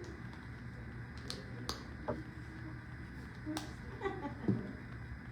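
A few short, sharp clicks at uneven intervals over a steady low hum.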